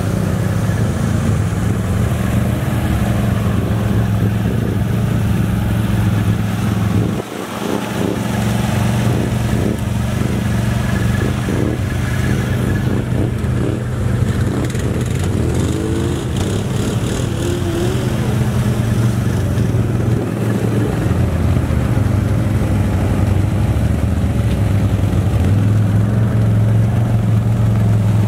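Can-Am Outlander XMR ATV's V-twin engine running steadily under low, even throttle, dipping sharply once for a moment about seven seconds in.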